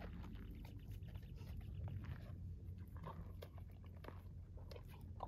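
Faint irregular crunching and clicking sounds over a low steady rumble.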